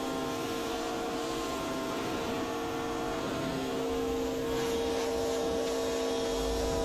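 Pressure washer running and spraying a car's paint to loosen and rinse off the bulk of the dirt: the steady hiss of the water jet over the machine's steady hum, which holds a few fixed tones.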